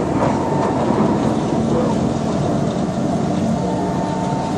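SMRT C151 metro train running, a steady rail rumble with faint steady hums from the train's machinery.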